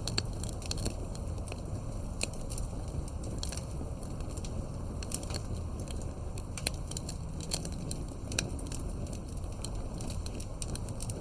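Campfire crackling: irregular sharp pops and snaps over a steady low rumble of the burning fire.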